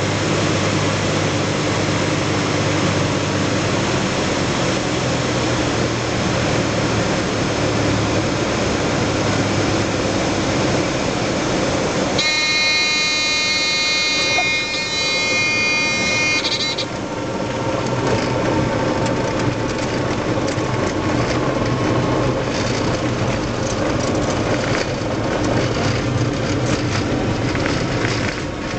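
Small single-engine propeller airplane's engine and propeller droning steadily in the cockpit on landing approach. About twelve seconds in, the drone drops and a steady warning horn, typical of a stall warning in the landing flare, sounds for about four seconds; after it stops, the engine runs at idle under a rattling rumble from the wheels rolling on the runway.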